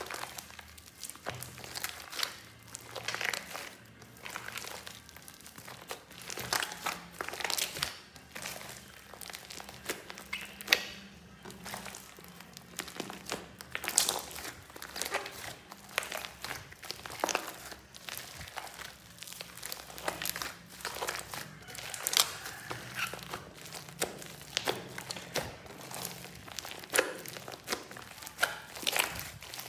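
Hands squeezing and kneading a big mass of slime and soft clay coated in white foam, making irregular squelches, crackles and pops.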